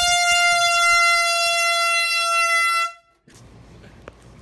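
Handheld air horn blasting one steady, high note for about three seconds, then cutting off suddenly.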